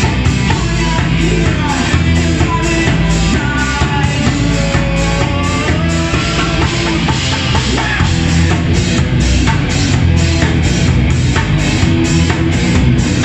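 Live rock band playing: electric guitars and a drum kit, with a woman singing over them.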